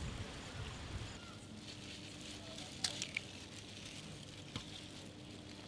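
Faint crackling and a few sharp clicks of rambutan peels being split and twisted open by hand, over a quiet hiss of outdoor air.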